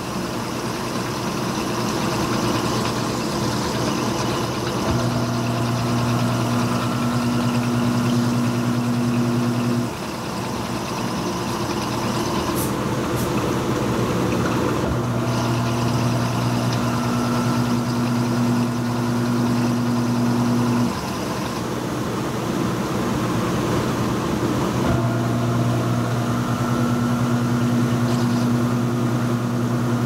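Panasonic NA-F180P7T top-load washing machine running its cycle with a king-size comforter inside: the motor hums in three runs of about five to six seconds, with pauses of about four to five seconds between, over a steady churning of water and fabric.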